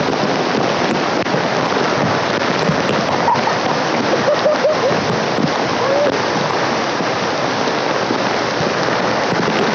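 Waterfall: heavy water pouring and splashing, a loud steady rush close to the falls.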